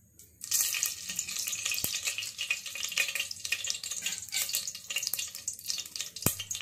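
A spoonful of ghee sizzling in hot oil in a stainless steel pressure cooker. It starts about half a second in as the ghee hits the oil and goes on as a dense hiss with many small pops.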